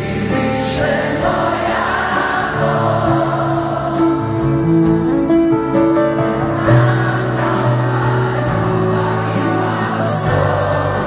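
Live band playing a slow ballad with held chords, with many voices singing together over it.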